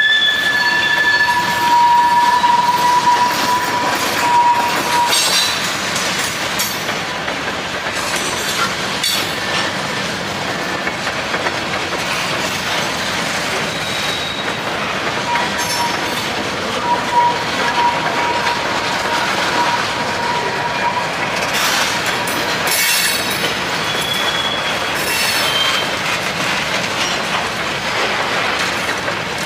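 Open hopper cars of a long freight train rolling past, their wheels clattering steadily over the rail joints. A high, steady wheel squeal comes in about a second in for a few seconds and returns briefly several times later, around the middle and near the end.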